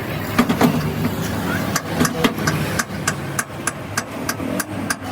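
Rapid sharp metal knocks, about three to four a second and irregular, over an engine idling steadily.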